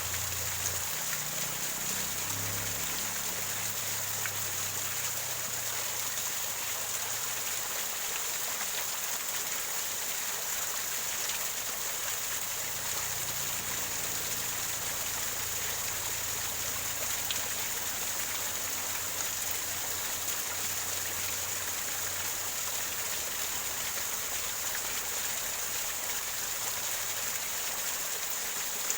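Small waterfall gurgling over rocks: a steady, even rush of running water.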